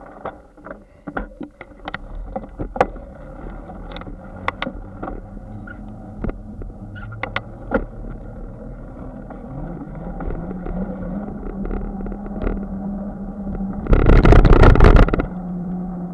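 Bicycle rolling over a concrete sidewalk, with sharp knocks as the tyres cross the slab joints. A hum rises in pitch about nine seconds in and then holds, and a loud rush lasting about a second comes about fourteen seconds in.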